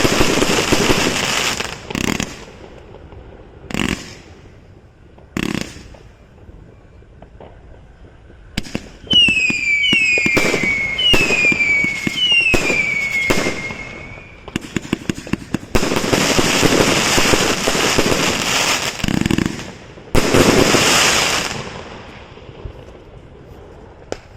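Consumer fireworks going off: loud volleys of bangs and crackle with single sharp reports in between. About midway, four whistling shots rise one after another, each whistle falling in pitch.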